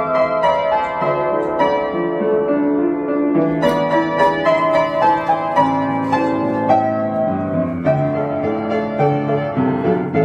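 Upright piano being played: a melody over held chords, with new notes struck steadily and ringing together.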